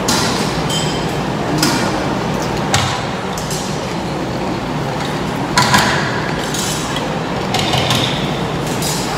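Cutlery clinking and scraping against plates and dishes while eating, several separate sharp clicks over a steady background hum.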